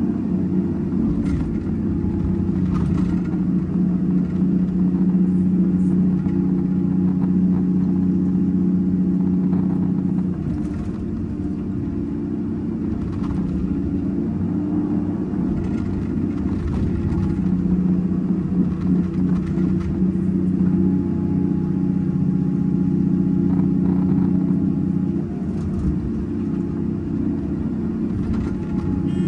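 Hyundai 330 excavator's diesel engine and hydraulics running steadily under load as it digs, swings and dumps loads into a dump truck, with occasional short clanks and rattles.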